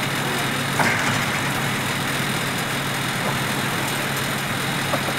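A heavy truck engine running steadily, with a sharp knock about a second in and a fainter one near the end.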